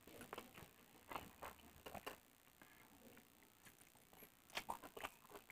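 Faint, scattered mouth clicks and smacks of a person chewing a mouthful of pakhala (watered rice) eaten by hand, with a few louder smacks near the end.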